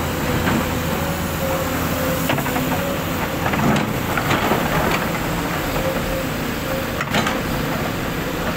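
Heavy diesel engines of a hydraulic excavator and a loaded dump truck running steadily. A few short knocks and scrapes come as the excavator bucket works among the rocks.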